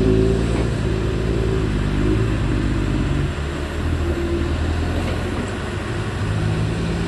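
Diesel engine running under load as a loaded six-wheel dump truck pulls away with a full bed of earth. The engine note changes about three seconds in.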